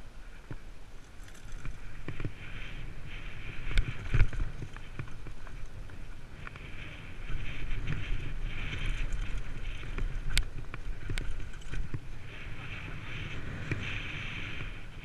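Downhill mountain bike running fast down a rough dirt and rock trail: a steady rumble and rattle of tyres and bike over the ground, broken by sharp knocks from hits, the biggest about four seconds in and another around ten seconds.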